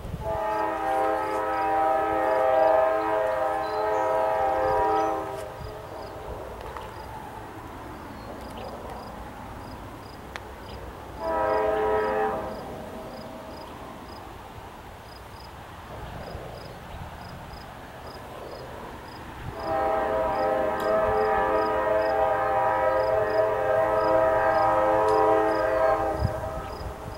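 Diesel locomotive air horn sounding for a grade crossing: a long blast of about five seconds, a short blast, then another long blast of about six seconds, over the low rumble of the approaching train.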